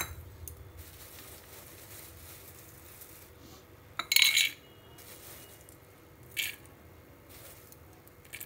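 A few short metallic clinks of small steel bowls being handled on the kitchen counter, the loudest about four seconds in and another about two seconds later, over a quiet background with a faint steady hum.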